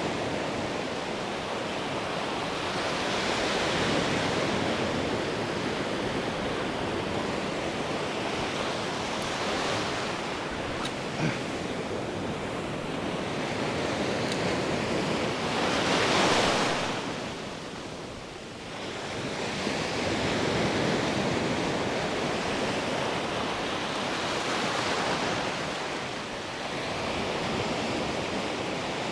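Ocean surf: waves breaking and washing up the beach in a steady rush that swells and fades every few seconds, loudest about halfway through.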